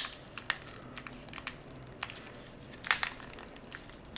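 Small clicks and scratches from handling and prying apart the plastic parts of a slider phone during disassembly: a sharp click at the start, another strong click about three seconds in, and faint scratching and ticks in between.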